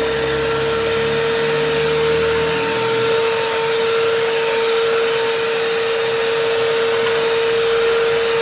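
Handheld electric mixer running steadily, its beaters creaming a thick cake batter after an egg is added. The motor gives a constant hum with one strong tone throughout.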